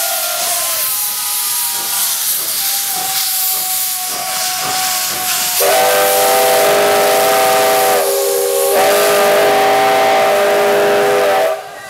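Soviet E-class steam locomotive hissing steam at first. About halfway through its whistle sounds a long chord of several tones, sagging lower in pitch for a moment in the middle, then holds until it cuts off abruptly near the end.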